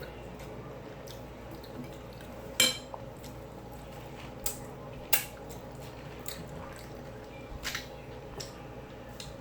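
Utensil clicking and scraping against a food bowl a handful of times, the sharpest click about two and a half seconds in, over a steady low hum.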